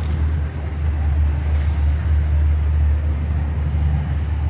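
Motorboat engine running steadily under way, a constant low rumble, with water churning along the hull.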